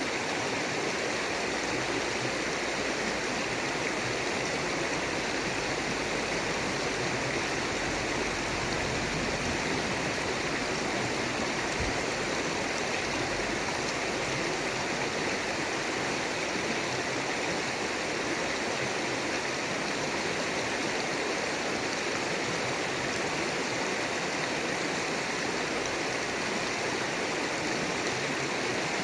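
River water flowing steadily: a continuous, even rushing with no pauses.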